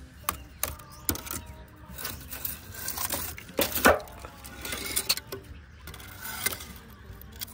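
Pieces of hard, freshly burnt charcoal clinking and knocking against each other and the steel drum as they are picked up and shifted by hand. The clinks come in an irregular series, loudest about four seconds in.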